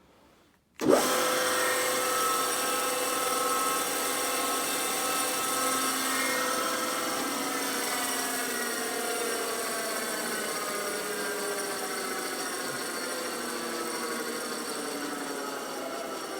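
FSSh-1A spindle moulder with tenoning carriage switched on about a second in, then running steadily with a multi-toned whirr.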